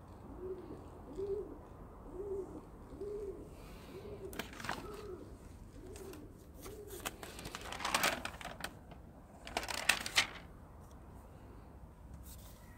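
A pigeon cooing, a short low rising-and-falling note repeated about once a second that stops a little past halfway. Over it, sheets of a spiral-bound sketchbook rustle as pages are turned, loudest about 8 and 10 seconds in.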